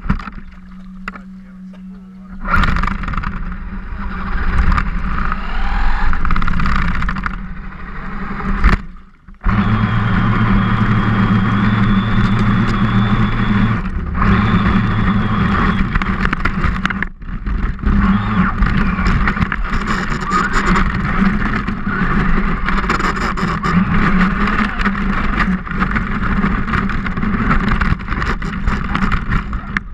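Radio-controlled truck driving through a shallow creek: its motor and drivetrain whine under throttle over water splashing and wind rush on the onboard camera. The noise dips out briefly a few times.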